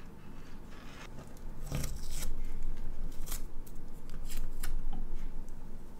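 Masking tape being pulled off the roll and snipped with scissors: a few short, sharp, crackling snips, a cluster about two seconds in and more, one at a time, through the second half.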